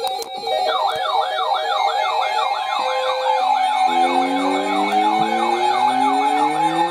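Weather alert radios sounding electronic siren-like alarms at once over a steady tone: a fast repeating whoop about three times a second starts about a second in, and slower rising wails join about halfway through. The alarms signal that a new warning is being broadcast.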